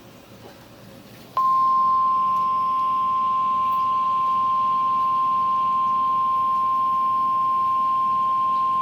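NOAA Weather Radio warning alarm tone, a single steady 1050 Hz beep that comes on about a second and a half in and holds unbroken, signalling that a weather warning is about to be broadcast. Before it, only faint radio hiss.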